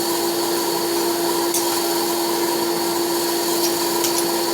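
Steady motor hum with a constant low tone and a higher whine, with a few faint light clicks.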